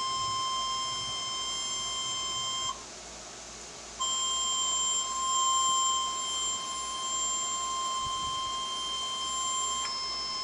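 Emergency Alert System warning tone in the NOAA Weather Radio style: one steady, high beep near 1 kHz, the 1050 Hz alarm tone that comes before a weather alert message. It cuts out for about a second a little way in, then resumes.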